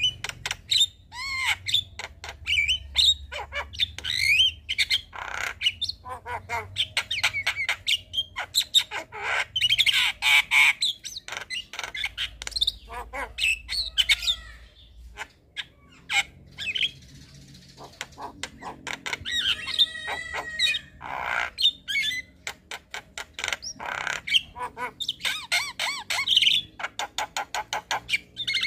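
Javan myna singing a busy, chattering song: harsh calls, rapid clicks and whistled notes that glide up and down.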